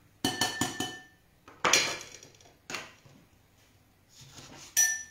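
Metal kitchen utensils clattering against a ceramic bowl and a wooden cutting board as a lemon is cut with a knife: a quick cluster of clinks at the start, some ringing briefly, then a few single sharp knocks.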